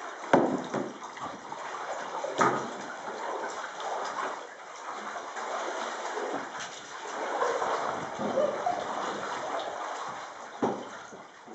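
Canoe paddles dipping and stroking through water, with continuous sloshing and splashing and a few sharper, louder splashes.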